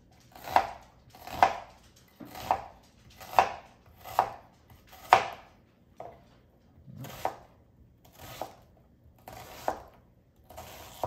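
Chef's knife chopping a red onion on a cutting board: about ten sharp strikes, roughly one a second, with a pause of about two seconds midway.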